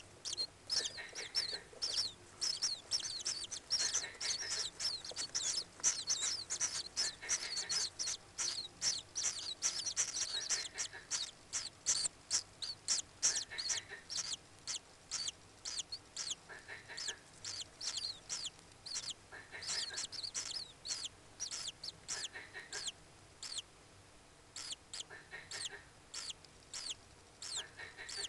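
Common kingfisher calls: a fast run of shrill, high-pitched chirps, several a second, each dropping slightly in pitch, with a softer, lower call about every two seconds. The chirps thin out somewhat over the last several seconds.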